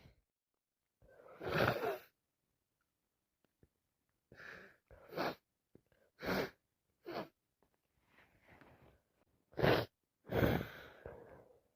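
A woman with a heavy head cold sniffling and breathing noisily in about seven short, separate bursts.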